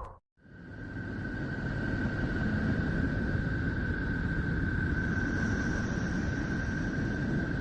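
Spacecraft radio-wave recording converted to sound and presented as a planet's sound: a steady rumbling hiss with a single steady high whistle-like tone held above it, fading in after a brief gap at the start.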